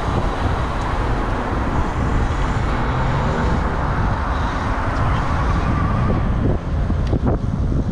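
Steady rushing noise of wind on the microphone and tyres on the road as a SUPER73 RX Mojave e-bike rides along at speed.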